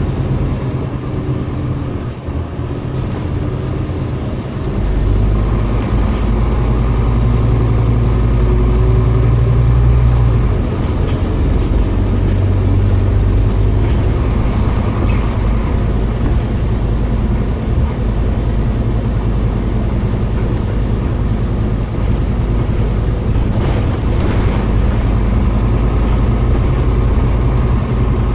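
Scania OmniCity bus heard from inside the passenger saloon while it drives: the engine runs steadily under load with road noise, and its note shifts a few times as the bus speeds up and changes gear.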